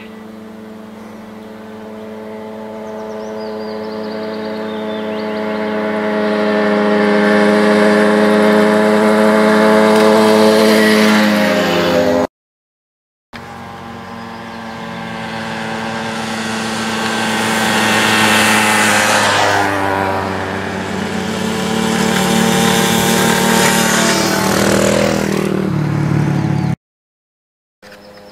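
A group of mopeds riding past, their small engines buzzing louder as they approach and dropping in pitch as each goes by. This happens twice, with a brief silent break between.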